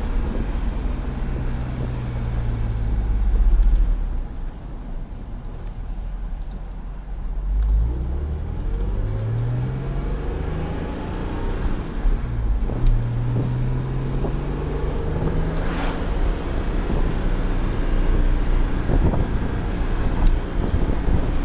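NSX engine pulling under acceleration while driving, with wind and road noise. Its pitch eases off about four seconds in, climbs again from about eight seconds, drops at an upshift around twelve seconds and climbs once more.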